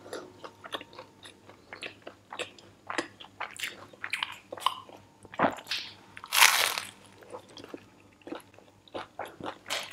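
Close-up chewing of a crispy fried Burger King Crunchy Chicken Volcano shell: irregular small crunches and wet mouth clicks, with one louder, longer burst of noise about six and a half seconds in.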